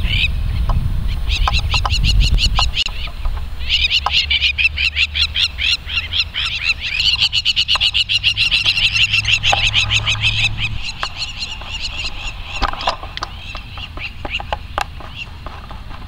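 Crowned lapwings (crowned plovers) giving alarm calls: fast runs of high, shrill repeated notes in several bouts, the longest lasting about seven seconds, then fainter over the last few seconds. They are scolding a dog that is chasing them.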